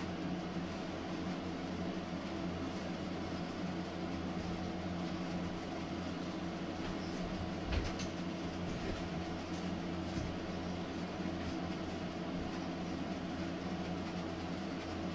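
Steady low mechanical hum with several constant pitches, with a few faint taps around the middle.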